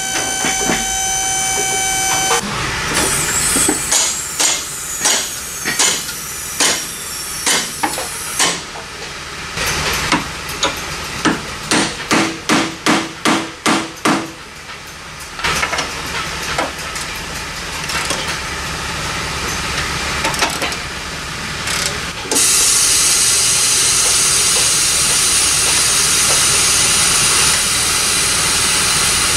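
Hand-tool work on a Fox Body Mustang's front strut mount: sharp metal taps and clanks, then a run of about ten evenly spaced strokes, roughly two a second. From about two-thirds of the way in, a loud steady hiss takes over.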